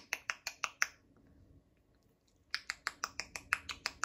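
A rapid series of sharp clicks, about six or seven a second, in two runs of a second or two with a short pause between them.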